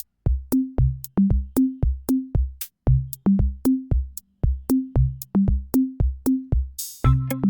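Background music with a drum-machine beat: kick drum and short pitched bass notes at about three strikes a second. Near the end a cymbal swell leads into fuller synth chords.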